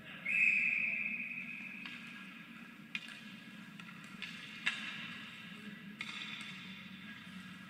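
A referee's whistle blown once as a single held high tone lasting about a second and a half, signalling the start of a penalty shot in youth ice hockey. After it come rink ambience with skates on the ice and two sharp knocks, about 3 and 4.7 seconds in, as the shooter carries the puck in.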